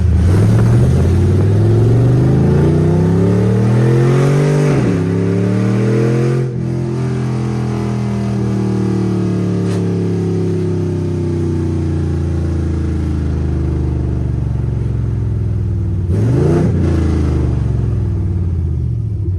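Fifth-generation Camaro SS's 6.2-litre V8 running loud on open long-tube headers with no exhaust pipes fitted behind them. It pulls up through the revs for about four seconds and drops sharply on a shift, then slowly winds down. About sixteen seconds in there is a quick rise and fall in revs.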